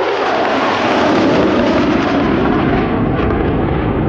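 A pair of JASDF Mitsubishi F-2 fighters flying past with the loud jet noise of their General Electric F110 turbofan engines. The noise drops in pitch as the jets go by and goes duller near the end.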